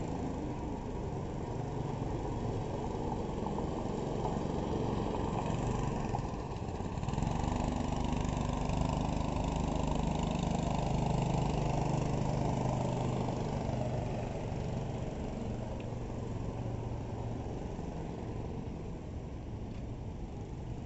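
Small go-kart engine running as a kart laps the track; it grows louder as the kart passes close by about a third of the way in, then fades as it drives away.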